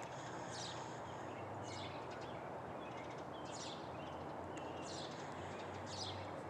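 A songbird repeating a short, high chirp, five times about a second or so apart, over a steady outdoor background hiss and low hum.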